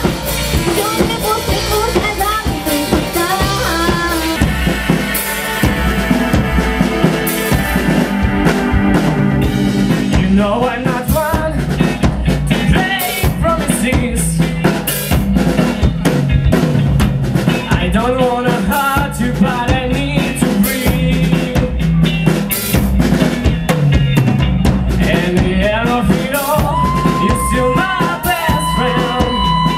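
Live rock band playing an instrumental passage, with a steady drum-kit beat of bass drum, snare and rimshots under guitar and keyboard lines.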